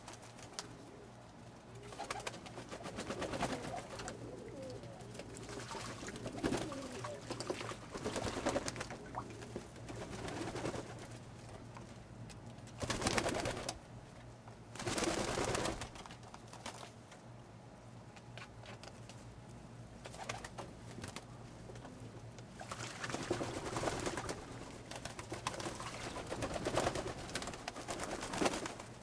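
Old German Owl pigeons cooing while bathing in a shallow tub of water, with repeated bursts of wings flapping and splashing in the water; two louder splashing bursts come about 13 and 15 seconds in.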